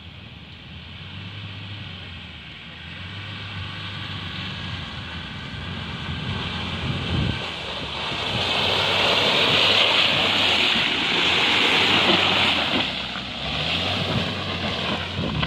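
Land Rover Discovery Td5's five-cylinder turbodiesel engine running under load as it drives through mud. It gets steadily louder as it comes close, loudest about two-thirds of the way in, then eases off a little.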